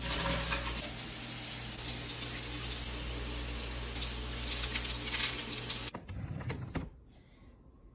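Shower water running: a steady hiss of spray that cuts off abruptly about six seconds in. Right after, a wooden drawer slides open with a few short clacks.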